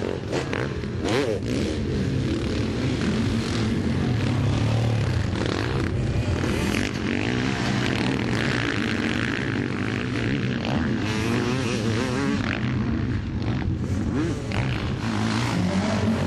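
Motocross dirt bikes racing, their engines running continuously and revving up and down in pitch.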